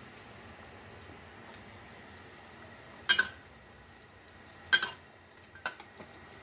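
A spatula knocks against the wok while stirring the curry: a few sharp clanks, the loudest about three seconds in and again a second and a half later, then two lighter taps.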